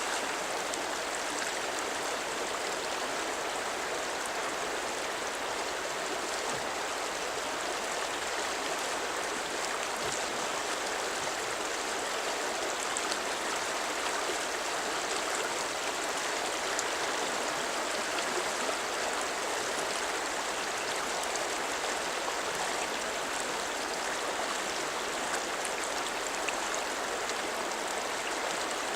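Flowing river water, a steady, even rushing that keeps on without a break.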